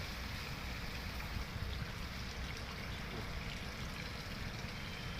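Steady rush of flowing river water, with a low, uneven rumble underneath.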